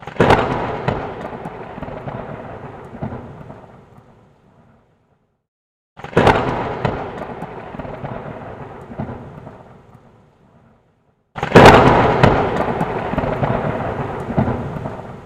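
Three claps of thunder, each a sharp crack followed by a rumble that fades over about four seconds, roughly six seconds apart; the last is the loudest.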